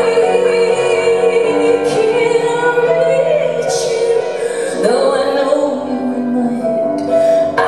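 Live music: a woman singing long, held notes over keyboard accompaniment.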